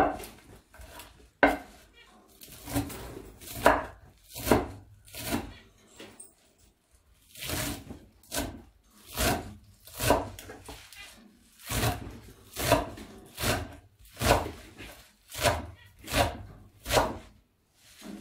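Chef's knife chopping fresh mallow greens on a wooden cutting board, in steady strokes about once a second, with a short pause about six seconds in.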